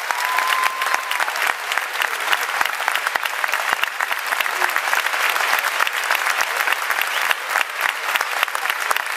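Large audience applauding steadily, a dense even patter of clapping throughout.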